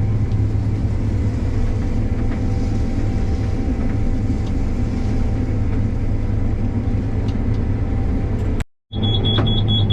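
Combine harvester running under load, its steady drone heard from inside the cab. Near the end, after a brief break, a rapid high-pitched cab alarm starts beeping.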